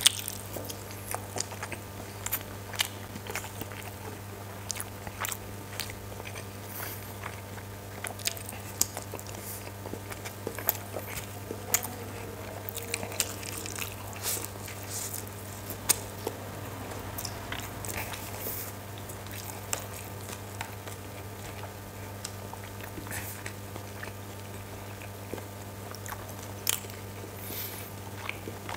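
Close-miked chewing and biting: a man eating steamed chicken momos and chicken chow mein noodles by hand, with irregular sharp clicks and smacks of the mouth throughout.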